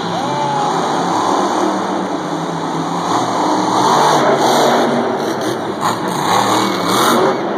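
Max-D monster truck's supercharged V8 engine revving hard as the truck stands on its rear wheels and spins through a wheelie. The pitch rises and falls, loudest about four seconds in and again near the end.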